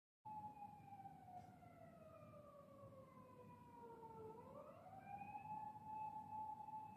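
A siren sounding faintly, cutting in abruptly just after the start. Its pitch slides slowly down for about four seconds, then rises back up and holds steady.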